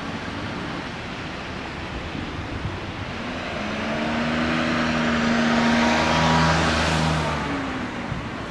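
A vehicle passing by: its sound swells from about three seconds in, peaks around six seconds with a steady hum and tyre-like hiss, then fades away near the end.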